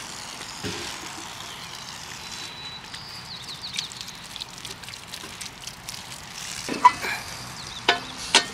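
Water running from a campsite spigot, splashing over hands and onto the ground, with a few sharp knocks near the end.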